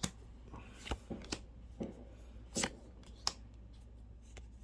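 Magic: The Gathering trading cards being handled and flipped through: a string of about eight short, irregular flicks and snaps, most of them in the first three and a half seconds.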